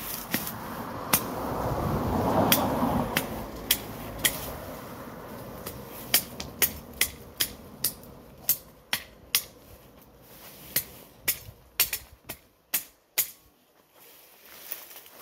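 Weeds being cleared by hand: a rustle of torn vegetation swells about two seconds in, then a run of sharp chopping knocks, about two a second, thins out near the end.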